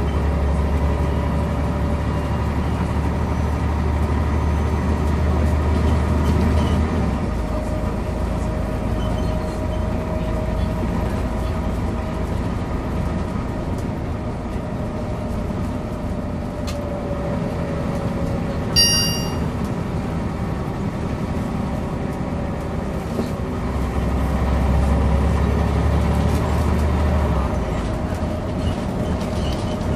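Scania OmniCity (CN94UB) bus driving, heard from inside the saloon. Its five-cylinder diesel drones deep under load for the first several seconds and again for a few seconds near the end, dropping away suddenly each time, over a whine that rises and falls with speed and road noise. A short, high chime sounds once about two-thirds of the way through.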